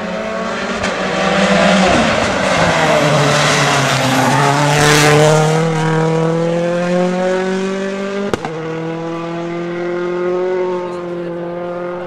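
A World Rally Car's turbocharged four-cylinder engine driving hard through a tarmac bend. The engine note dips as it slows for the corner, then climbs steadily as it accelerates away, loudest about five seconds in as it passes closest.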